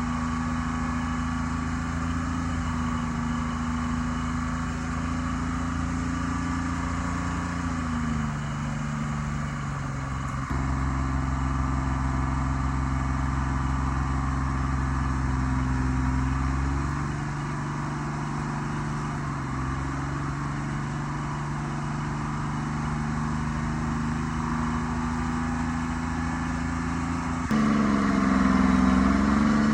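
A forwarder's diesel engine running steadily, its speed dropping and picking up a few times, with a sharp rise in engine speed near the end.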